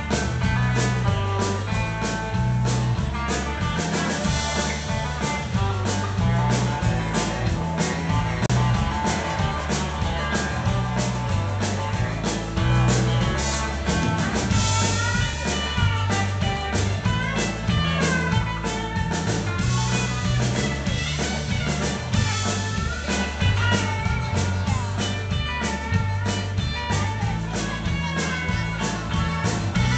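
Live rock band playing an instrumental break: electric guitar lines that bend in pitch, over bass, acoustic guitar and a steady drum-kit beat.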